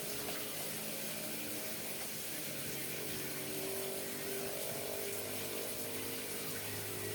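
Steady hiss with bubbling from a pot of coconut-milk laksa broth simmering on the stove.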